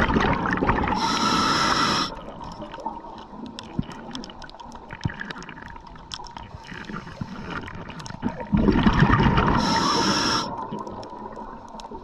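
Scuba diver breathing through a regulator. Twice, a loud rumble of exhaled bubbles is followed by about a second of hissing inhalation. Between breaths there are faint clicks and scrapes of gear being handled.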